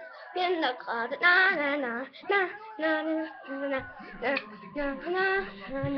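A young child singing in short, wavering phrases with brief pauses between them.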